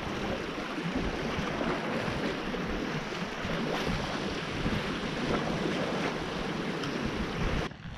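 Sea surf washing against a rocky shore, a steady rush, with wind buffeting the microphone; it cuts off suddenly near the end.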